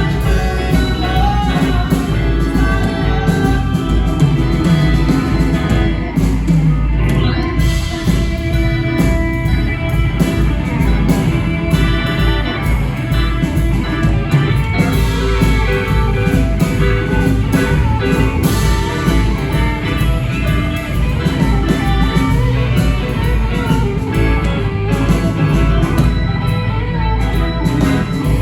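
Rock band playing: electric guitar and a steady beat.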